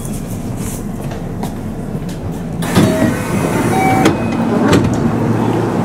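Interior of a local commuter train car: the low rumble of the train easing to a stop. About two and a half seconds in, the doors slide open with a sudden burst of noise, followed by several short steady tones.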